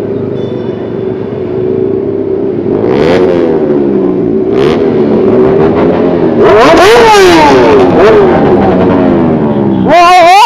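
Sport motorcycle engines in a riding group, revved hard several times: the engine pitch climbs and falls steeply about three seconds in, twice more around seven to eight seconds, and loudest near the end.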